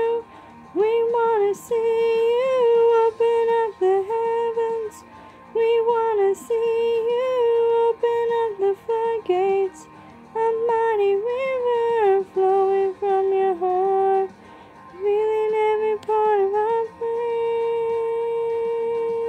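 A woman singing wordless melodic runs, vocalising phrase after phrase with short breaks, and ending on one long held note near the end.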